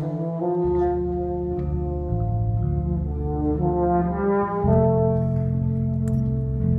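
Wind band playing slow, held brass chords that move to a new chord every second or so, with a deeper chord coming in about two-thirds of the way through.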